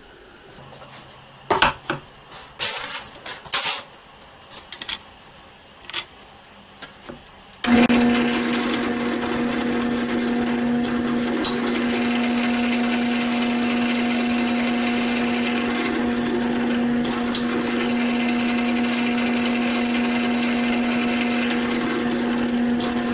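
A few knocks and clatter, then a drill press starts about eight seconds in and runs steadily with a constant hum, its bit boring a hole through a metal spoon's handle.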